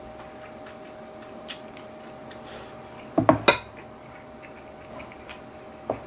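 A ceramic rice bowl is set down on a wooden table about three seconds in: a quick cluster of clunks with a brief ring. A few light clicks of chopsticks against the dishes come before and after, over a faint steady hum.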